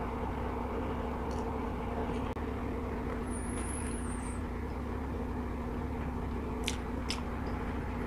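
A person chewing a mouthful of instant noodles over a steady low background hum, with two small clicks near the end.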